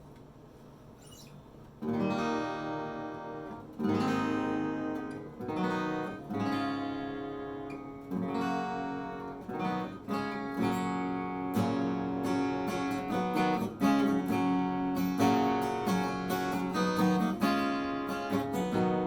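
Yamaha FS800 small-body acoustic guitar, strung with Santa Cruz low-tension parabolic strings over a bone saddle, strummed in chords that ring and die away. The strumming starts about two seconds in and comes quicker near the end.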